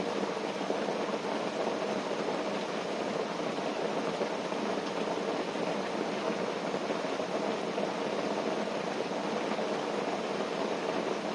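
Steady rain on a tent heard from inside it, an even rushing hiss with no separate drops standing out.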